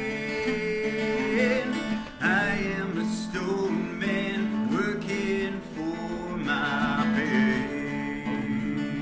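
A man singing a song, accompanying himself on a strummed acoustic guitar.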